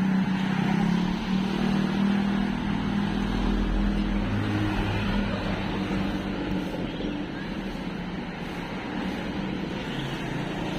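Street traffic with a motor vehicle's engine running close by, a steady hum that softens after about six seconds. A deeper rumble of a vehicle passes about three to five seconds in.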